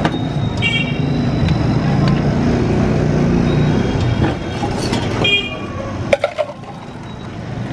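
Busy street traffic rumbling, with two short horn toots, one about a second in and another about five seconds in. A few sharp metal clinks come around six seconds, as steel mugs are handled.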